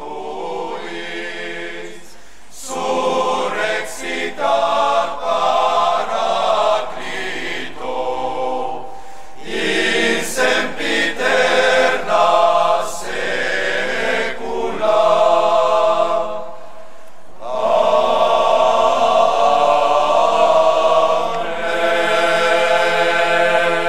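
A choir singing a liturgical chant in long sung phrases with brief pauses between them, one longer break about two-thirds of the way through.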